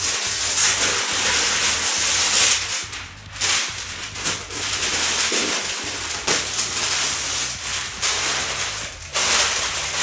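A thin white protective sheet being pulled off a boxed toy set inside its cardboard shipping carton: continuous crinkly rustling with small crackles, easing off a couple of times and swelling again near the end.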